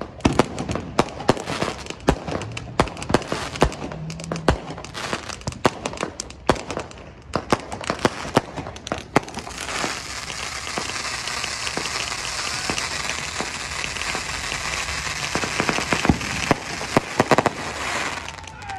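Aerial fireworks going off: a rapid, irregular series of sharp pops and bangs, then from about ten seconds in a dense, continuous crackling from glittering bursts that stops shortly before the end.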